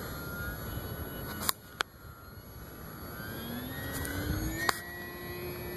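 Electric RC model plane's AXi 2826/10 brushless motor and propeller whining in flight. The whine drops back about a second and a half in, then climbs steadily in pitch as the throttle opens. A few sharp clicks are heard along the way.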